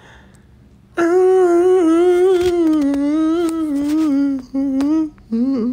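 A woman humming a tune: after a quiet second, one long, slowly wavering note, then two shorter notes near the end.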